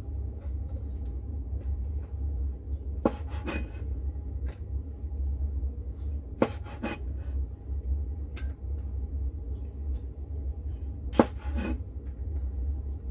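Kitchen knife chopping on a wooden chopping board, cutting the hard stem parts off soaked black wood ear fungus: three sharp knocks a few seconds apart, each followed by a lighter tap. A steady low hum runs underneath.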